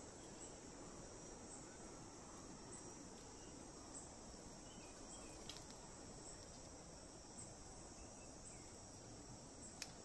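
Faint, high-pitched insect trilling from a garden, steady with a faint pulse about once a second. A single sharp click comes near the end.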